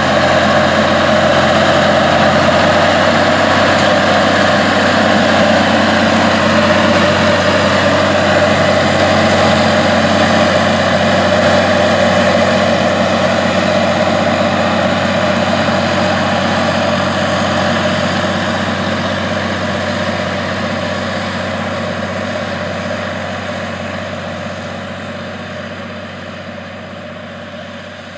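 Allis-Chalmers 8550's turbocharged 731 cubic inch diesel engine working steadily under load as the tractor pulls a tandem disk through the soil. It grows fainter over the last several seconds.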